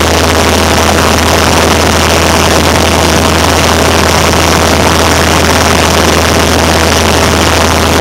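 Cessna 172's piston engine and propeller running steadily in flight, heard loud inside the cabin as an even drone with a constant low hum and a steady higher tone.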